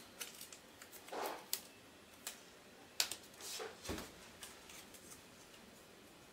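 Faint rustling and crinkling of painter's tape being pressed and smoothed down onto a puzzle piece by hand, with a few light clicks and a soft thump about four seconds in.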